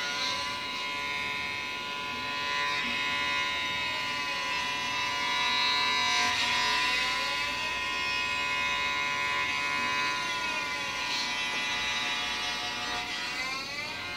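Electric cello bowed on one long held note, a steady pitched tone that carries on without a break.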